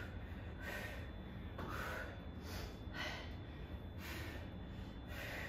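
A woman breathing hard during kettlebell goblet squats, short forceful breaths about once a second in time with the squats.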